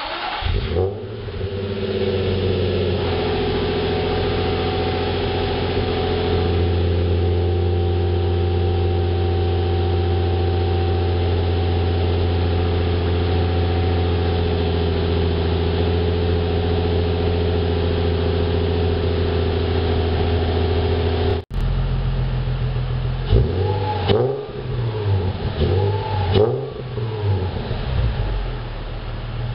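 A 2006 Nissan 350Z's 3.5-litre VQ35DE V6 heard through a Nismo S-Tune exhaust, idling steadily. A little past twenty seconds in it is revved in several quick blips that rise and fall, then drops back to idle.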